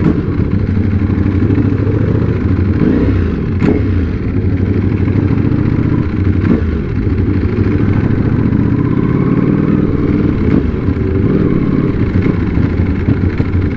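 Motorcycle engine running under way, its pitch rising and falling with the throttle.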